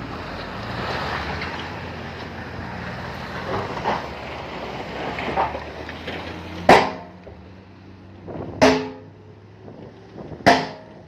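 Heavy diesel earthmoving machinery running, then three loud metallic clangs, evenly spaced about two seconds apart, each ringing briefly.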